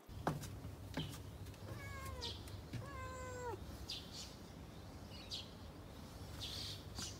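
A calico cat meowing twice, about two and three seconds in; the second meow is longer and drops in pitch at the end. A few short clicks fall around it.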